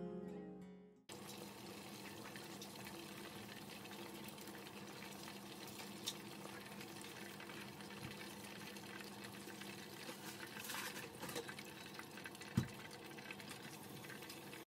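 Chicken pieces deep-frying in hot oil, a steady sizzle, with a small click about six seconds in and a sharp knock about twelve and a half seconds in.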